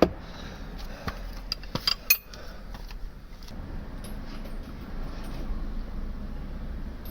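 Metal hand tools clinking against metal: a sharp knock at the start, then a quick run of ringing metallic clinks about one to two seconds in.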